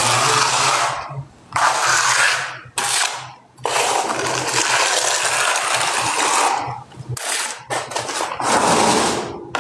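Repeated bursts of harsh scraping noise with short gaps between them, the longest lasting about three seconds.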